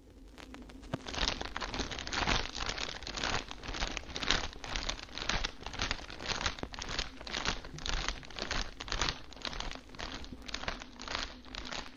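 Pearl necklace being fiddled with, its rattle blown up into a loud crackling, crinkling noise that comes in uneven bursts about twice a second, starting about a second in. It is the comic 'early talkie' gag in which the microphone picks up the fidgeting with the pearls. A faint steady hum lies underneath.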